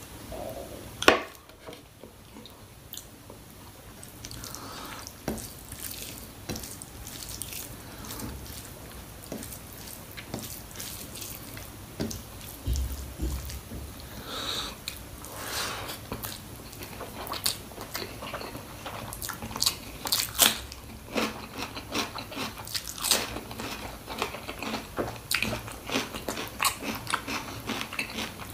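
Close-up eating sounds of goat trotters (mutton paya) being chewed and bitten: a long run of short clicks and crunches, with one sharp click about a second in, and growing denser about halfway through.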